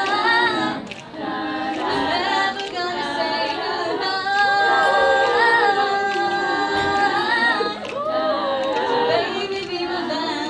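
A small group of teenage girls singing a cappella in close harmony, several voices holding and sliding between notes together.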